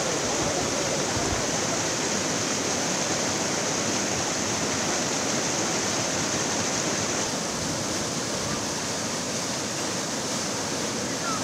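Fast-flowing muddy floodwater rushing steadily through a plantation, a continuous even wash of water noise.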